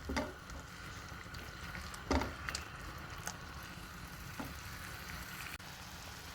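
Sliced button mushrooms sizzling in butter in a pan over a high flame as their released water cooks off. A few sharp clicks sound over the sizzle, the loudest just after the start and about two seconds in.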